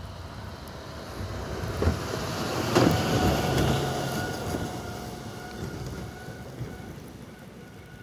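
A vehicle passing by, growing louder to a peak about three seconds in, with a couple of sharp knocks, then fading away.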